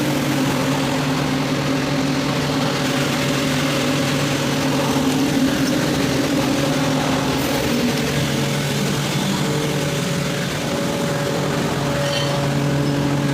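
Atlas Copco GA 165 rotary screw air compressor running with a steady hum.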